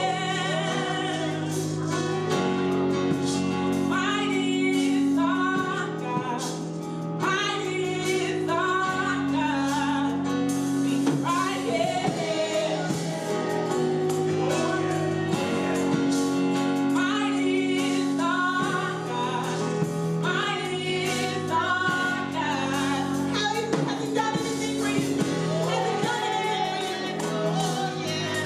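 Gospel worship singing with instrumental accompaniment: voices singing a melody over sustained chords with a steady beat.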